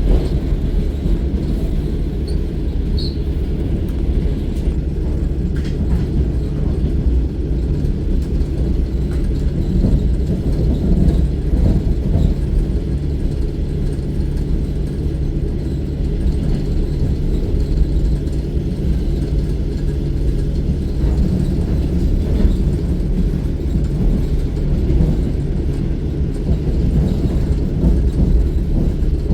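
Electric suburban train (elektrichka) heard from inside the carriage while running: a steady low rumble of the wheels and running gear on the rails.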